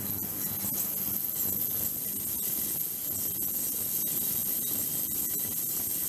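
Ultrasonic cleaning tank running with water, giving a steady hiss and a high steady whine, with water churning around a slowly turning acrylic drum and faint scattered clicks.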